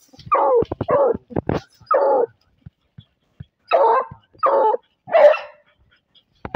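Hunting hounds barking into a burrow where a paca has gone to ground, baying at the hidden quarry. There are six short barks in two runs of three, with a few sharp scraping clicks between the first runs.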